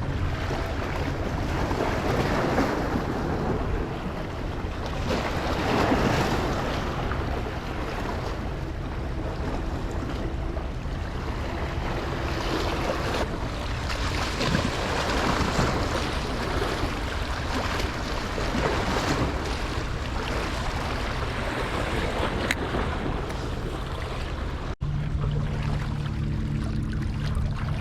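Ocean surf washing and surging, with wind buffeting the microphone; the wash swells and ebbs over several seconds. Near the end, after a brief dropout, a steady low hum joins in.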